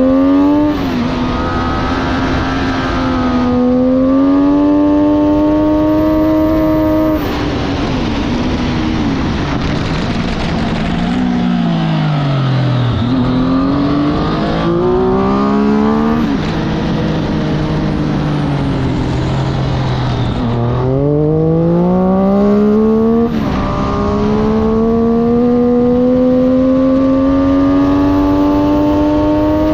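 Motorcycle engine heard onboard at full throttle on a racing circuit, climbing in pitch through the gears with a sudden drop at each upshift. Twice near the middle the pitch winds down as the bike slows for a corner, then it climbs again. Heavy wind rush runs underneath.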